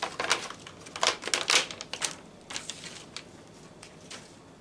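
Clear plastic snack bag crinkling and crackling as it is handled, in a quick run of sharp crackles over the first two seconds, then a few scattered ones.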